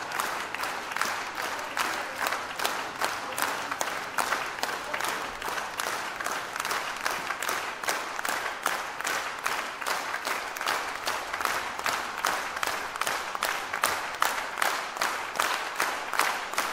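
Concert audience applauding by clapping together in a steady rhythm, about three claps a second.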